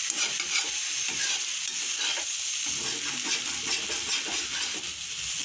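Thin-cut potato sticks sizzling in hot oil in a metal kadhai on full flame, with a spatula stirring and scraping through them at times.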